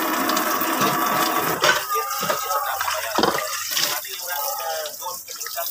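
Tap water running into a stainless steel sink and splashing off dishes as they are rinsed by hand: a glass jug, then an enamel bowl.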